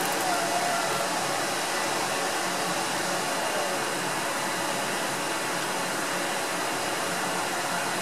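Steady rushing, blower-like noise of the microwave plasma jet rig. A faint wavering whine on top of it stops about a second in, around when the plasma goes out.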